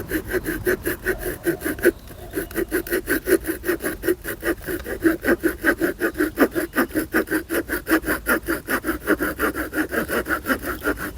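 Victorinox RangerGrip pocketknife's small saw blade cutting through a log of about 5–7 cm, in quick short strokes of about four or five a second with a brief pause about two seconds in. The saw is worked lightly so the blade binds as little as possible.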